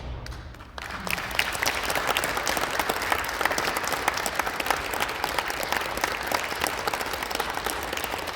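An audience applauding, a dense steady clatter of many hands clapping that starts a little under a second in, just after the last held chord of the music stops.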